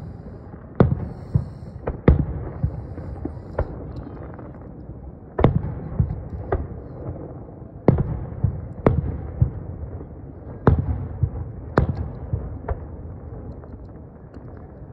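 Aerial fireworks shells bursting in quick succession: about a dozen sharp booms, each a second or so apart, with low rumbling echo between them. The booms stop in the last couple of seconds.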